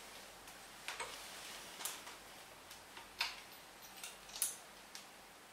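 A few faint, sharp ratchet-wrench clicks, spaced roughly a second apart, as the scooter engine's cylinder head bolts are tightened down.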